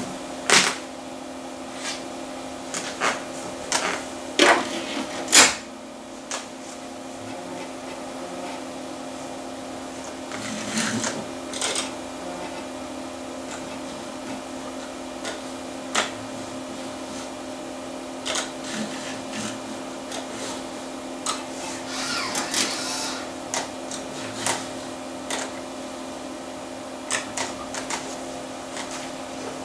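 Compact Macintosh's 3.5-inch floppy drive loading, reading and ejecting a disk. There are scattered mechanical clicks and knocks, with clusters of whirring and clicking bursts from the drive, over the machine's steady hum.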